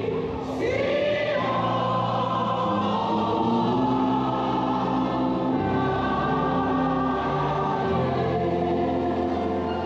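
A choir singing a gospel song with sustained notes over steady instrumental accompaniment that holds long low notes.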